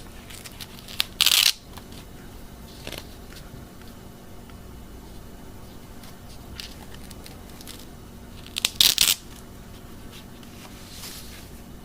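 The camcorder's adjustable hand strap being worked: two short rasping rips, about a second in and again near the ninth second, with light clicks and rustles of handling between.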